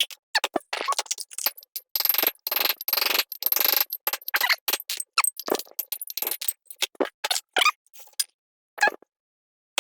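Hammer blows driving bearing races into the hubs of disc brake rotors: a quick, irregular run of sharp metallic strikes with a short ring, a few a second, that thins out and stops near the end.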